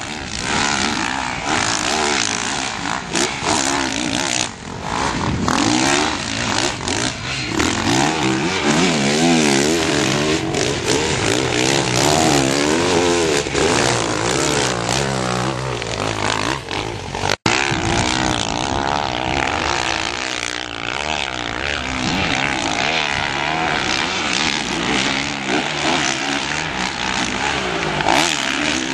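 Motocross dirt bike engines revving hard, the pitch rising and falling again and again as the riders work the throttle through the sand. First a red Honda, then, after a brief dropout about two-thirds of the way through, a green Kawasaki.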